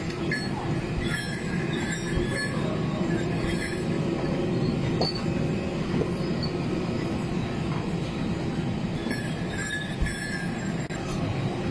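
Steady droning cabin noise of a parked airliner during boarding, with a faint high whine coming and going.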